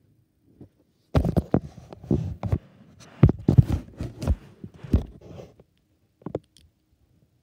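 Hands handling plastic LEGO minifigure parts right at the microphone: a quick run of clicks and low thumps starting about a second in and lasting some four seconds, then two small clicks near the end.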